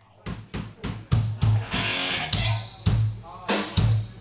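Drum kit played during a band sound check: repeated kick-drum thumps with snare hits and a cymbal wash from about a second in, with some guitar sounding along.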